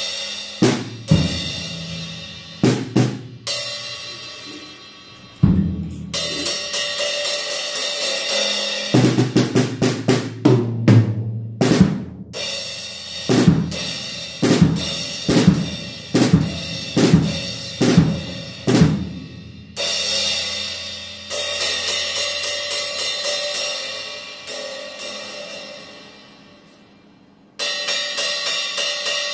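Acoustic drum kit played freely: snare, bass drum and tom strikes under cymbal crashes and ringing washes, tried out on a new 12-inch Wuhan Western Series splash cymbal. Partway through comes a quick run of tom hits; near the end the playing stops and the cymbals ring down before a steady cymbal beat starts up again.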